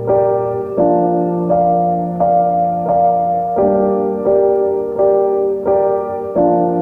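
Background music: a piano or electric-piano melody, notes struck at an even pace of about one every 0.7 seconds over held bass chords.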